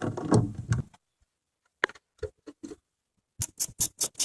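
Metal clunks and knocks from handling suspension parts and tools during rear strut removal, then a run of sharp, evenly spaced clicks, about five a second, starting near the end.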